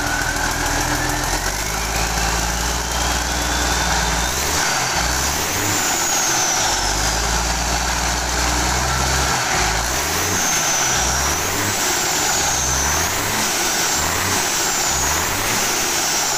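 Mitsubishi Fuso 6D22 six-cylinder truck diesel on a test run after repair, revved up and down, with the blips coming quicker in the second half. A high whistle rises and falls with the revs.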